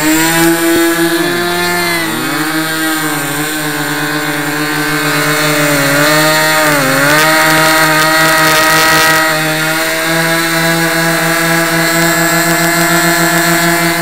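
Twin ASP .52 two-stroke glow engines of an RC model plane running together at close range. One engine's pitch dips sharply and recovers about a second and a half in, and dips again about six to seven seconds in.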